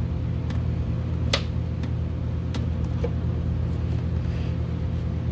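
A steady low background hum, with a few light clicks and taps from wiring being fed through and handled.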